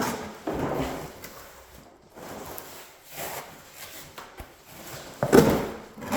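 A mechanics tool set in its case and cardboard packaging being handled and slid out during unboxing: irregular scraping and rubbing with knocks, the loudest about five seconds in.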